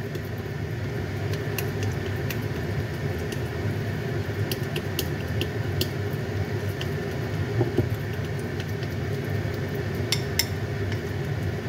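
A metal spoon stirring a sticky fish paste and tofu mix in a ceramic bowl, giving irregular light clicks and scrapes against the bowl, with a louder pair of clicks about ten seconds in. Under it runs a steady low rumble.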